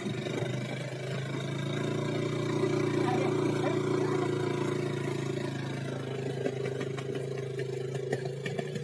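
A motor scooter's engine running steadily at an even pitch, a little louder for a few seconds after the start.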